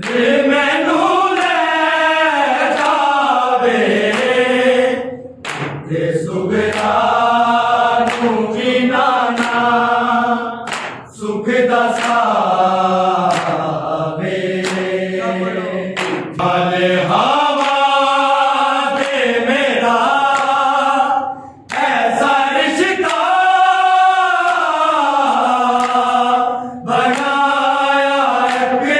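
A group of men singing a Punjabi noha, a Shia lament, together without instruments. They sing long, drawn-out melodic phrases with a short break for breath about every five or six seconds.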